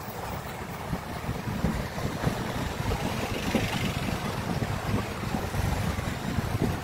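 Wind buffeting the microphone as it moves through street traffic, over a low rumble of motorcycle and car engines.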